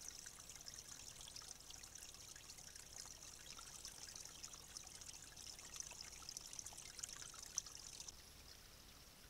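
Faint, steady trickle of water running through a leaky beaver dam, with fine crackling. It grows quieter about 8 seconds in.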